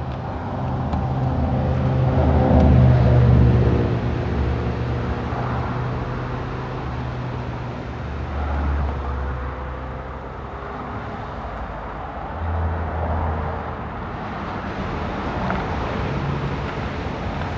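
Road traffic: a steady low rumble, swelling as vehicles pass about 3, 9 and 13 seconds in.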